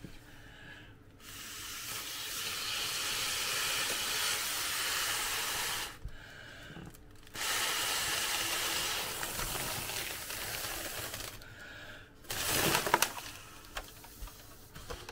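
Air blown through a straw into a self-sealing candy cane balloon to inflate it: two long, steady breaths of airy hiss of about five and four seconds, then a short burst of handling noise with small clicks.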